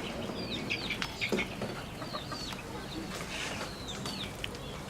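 Chickens calling: a scatter of short, high peeps that drop in pitch, coming irregularly several times a second.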